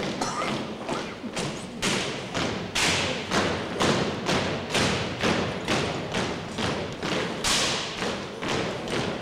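A drill team's marching steps, hard-soled boots striking a wooden gym floor in a steady rhythm of about two and a half beats a second, echoing in the hall.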